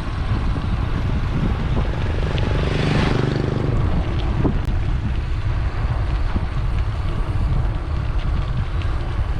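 Wind rumbling on the microphone of a camera riding along on a moving bicycle, with a louder rush swelling and fading about three seconds in.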